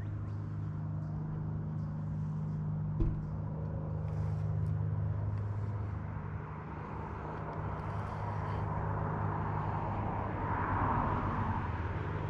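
A motor vehicle's engine running steadily with a low hum, with a single sharp knock about three seconds in.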